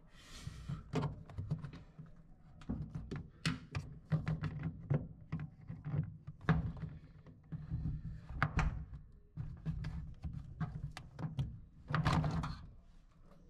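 Irregular knocks, clicks and thunks of hand tools and fingers against the plastic shock-absorber mount and frame under a front-loading washer, as the mounting peg of a shock absorber is worked loose. A longer rubbing scrape comes near the end.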